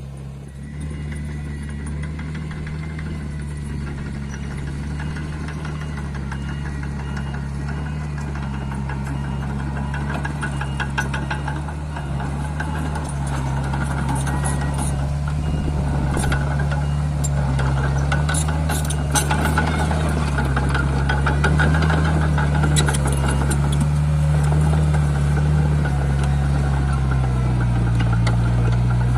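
Mini bulldozer's diesel engine running steadily and getting louder, with rapid high metallic clinking joining in from about ten seconds in.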